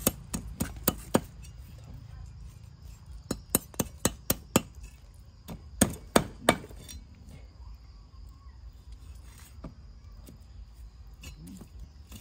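A knife chopping on a wooden board: sharp knocks in quick runs of several strokes with short pauses, the loudest around six seconds in, then a few sparser, lighter taps.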